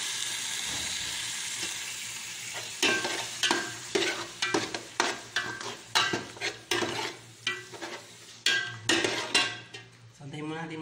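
Liver and chicken frying in oil in a metal pot, sizzling steadily. From about three seconds in, a metal ladle scrapes and knocks against the pot at about three strokes a second as the meat is stirred.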